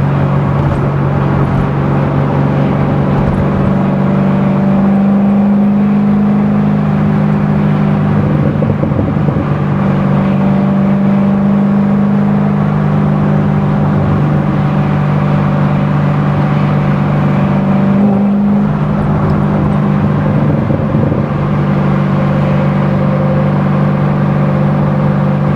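A C6 Corvette Z06's 7.0-litre LS7 V8 running steadily at a cruise, its low exhaust note shifting slightly in pitch a few times as the throttle changes.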